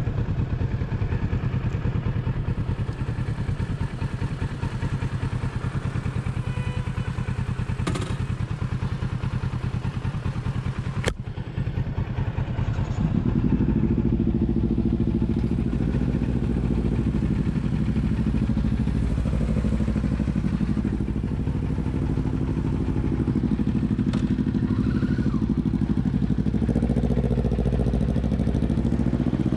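Motorcycle engine running with a steady low rumble, with two sharp clicks a few seconds apart. About thirteen seconds in it gets louder and fuller, and near the end the bikes are riding off in traffic.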